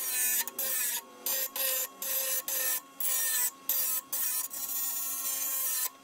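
A power tool cutting 16-gauge steel plate in about ten short stop-start bursts, the last one longer, over a steady motor whine.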